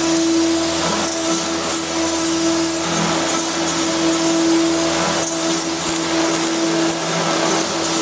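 Spindle motor of an automatic drilling machine running, its rotary hole cutter milling a branch-connection hole through the wall of a black ribbed plastic pipe. It is a steady hum with a constant hiss of cutting.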